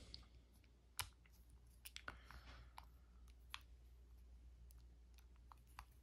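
Faint, scattered metal clicks and taps as a lock-picking tool is fitted into the small keyway on the back of a school-style Master combination padlock held in the hands. The clearest click comes about a second in.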